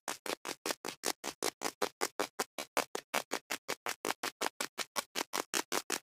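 Rapid, evenly spaced scraping strokes of digging in sand, about six or seven a second.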